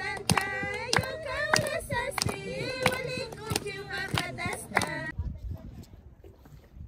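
A group of women singing a song together in chorus, clapping in time about every two-thirds of a second. The singing stops about five seconds in, giving way to a faint low rumble.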